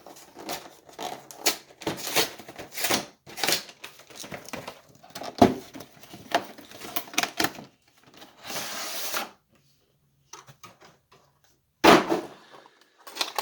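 A Pokémon trading card box and its packaging being handled and opened: a run of clicks, crinkles and knocks, with a short hiss of sliding or tearing a little past the middle and a louder knock about five seconds in and again near the end.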